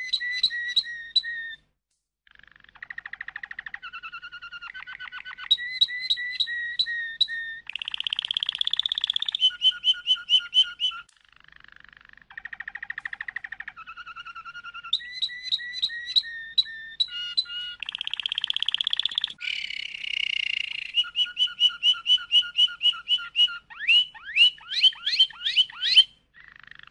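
Domestic canary singing a long song of rapid trills and rolls of quickly repeated notes, each phrase on a different pitch, with two brief pauses and a run of quick rising notes near the end.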